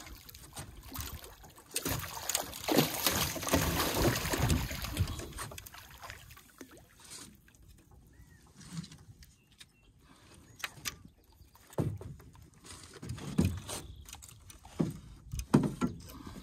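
Hooked carp thrashing and splashing at the surface beside the boat, loudest for a few seconds near the start, then weaker splashes and scattered sharp knocks.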